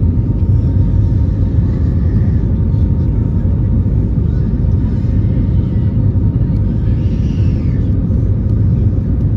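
Steady low rumble of an Airbus A320neo's engines and airflow heard from inside the passenger cabin as the jet flies, holding level throughout with a faint steady hum above it.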